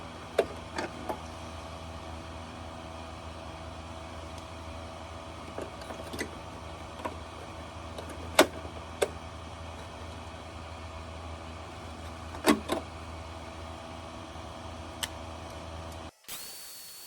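Steady mechanical hum with scattered sharp clicks and knocks of metal parts and tools being handled. Near the end the sound cuts off abruptly and a steady high-pitched whine begins.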